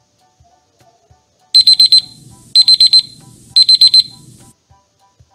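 Electronic alarm beeping as a countdown timer runs out: three bursts of rapid high-pitched beeps, each about half a second long and about a second apart, starting about a second and a half in.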